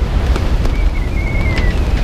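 Strong wind buffeting the microphone over the rush of the open sea, with a thin wavering whistle in the middle and a few sharp ticks.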